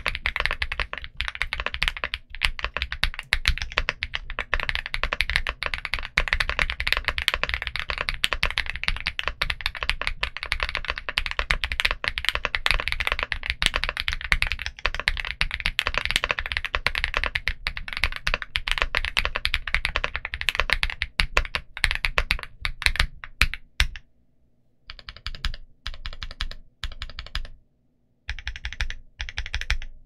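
Typing on an INKC65 mechanical keyboard fitted with CIY Asura switches and Domikey Productivity keycaps. The keystrokes come fast and continuous for most of the time. After a brief pause near the end, they come as separate short runs of key presses with gaps between them.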